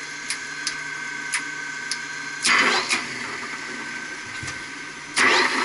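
Electric motor of a coupled circulating pump running with a steady high whine and hum and scattered sharp ticks, the sound of bad motor bearings. A louder burst of noise comes about halfway through and another near the end.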